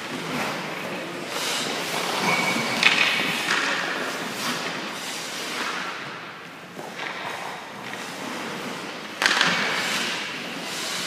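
Hockey skate blades scraping and carving across the ice in repeated hissing swells as a goaltender pushes and shuffles through a drill, with a sharp hit about nine seconds in.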